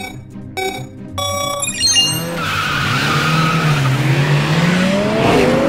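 Race start-light countdown beeps, three in the first two seconds with the last one longer. Then cartoon race cars launch: tyres squeal over a wavering engine note, and engine whines rise near the end as the cars accelerate.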